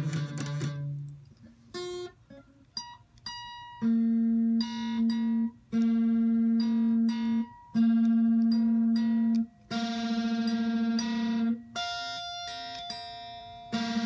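Les Paul-style electric guitar played slowly: a few short picked notes, then from about four seconds in a series of long held notes, each ringing a second or two with a slight pulsing in volume.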